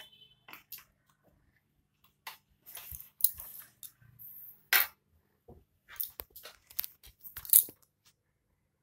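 Cardboard puzzle cards being picked up, shuffled and set down on a glass tabletop: scattered light taps and rustles with short pauses between, the sharpest taps about five seconds in and near the end.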